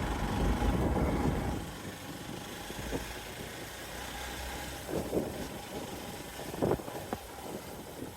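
Hero XPulse 200 Pro motorcycle's single-cylinder engine running, louder for the first two seconds and then steadier, with a few short knocks in the second half.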